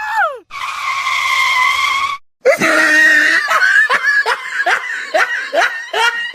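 High-pitched cries: a short falling cry, then one long held cry, then a quick run of short falling cries, about two a second.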